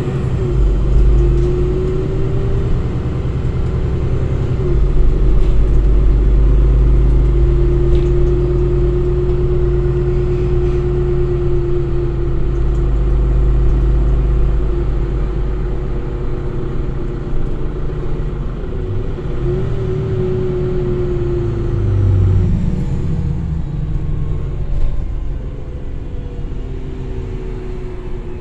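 Inside a Solaris Urbino 8.9 LE city bus on the move: the Cummins ISB6.7 inline-six diesel runs with a steady low rumble through the Voith automatic gearbox. A whine rises and falls several times as the bus speeds up and slows down.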